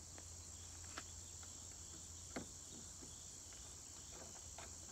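Steady high-pitched insect chorus, typical of crickets, with a few faint clicks of hardware being handled, the clearest about a second in and again near two and a half seconds.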